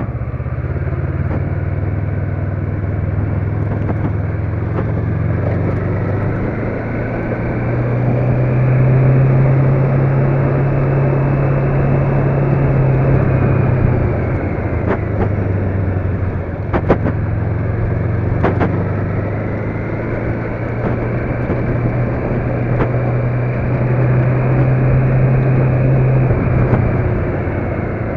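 Motor vehicle driving along a road: a steady engine drone with road noise that swells and eases twice. A few sharp knocks come a little past halfway.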